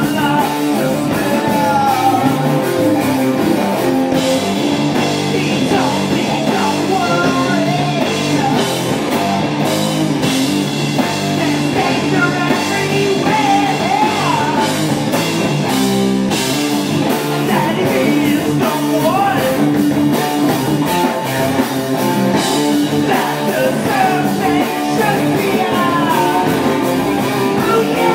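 Rock band playing live and loud: two electric guitars, an electric bass and a drum kit, running on without a pause.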